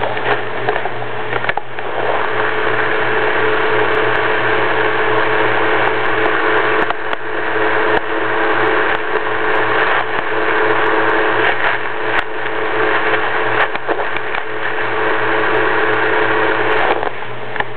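A steady, loud whirring noise with a constant hum under it, starting about two seconds in and cutting off suddenly near the end.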